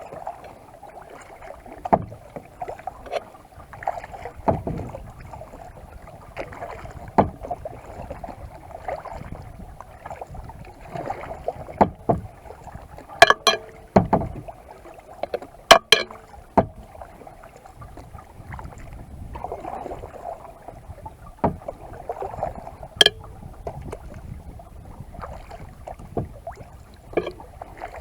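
Kayak being paddled: water splashing and dripping with each paddle stroke, with a few sharp knocks, twice in quick pairs, midway through.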